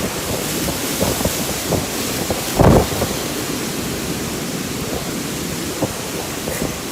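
Strong storm wind rushing and buffeting the microphone, with a steady hiss of rain. A loud low burst of buffeting comes about two and a half seconds in, and a few short knocks are scattered through.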